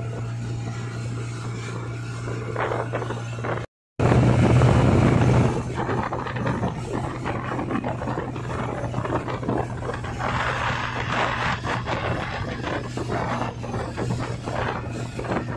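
Towing motorboat's engine running steadily, with wind and rushing water noise over it. The sound cuts out for a moment about four seconds in, then comes back louder for a second or so.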